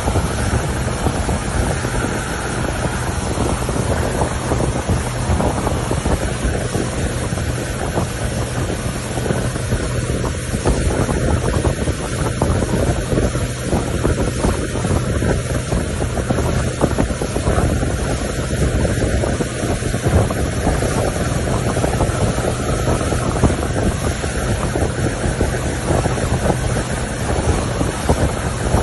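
Speedboat running at speed under a Suzuki 150 outboard motor, the engine and rushing wake spray heard through heavy wind noise on the microphone. The sound is a steady, dense rush with no let-up.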